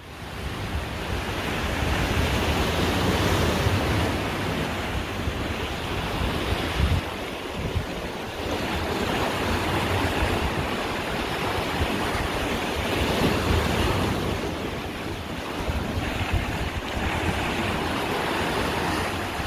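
Sea waves surging and breaking, swelling louder and fading several times, with wind buffeting the microphone.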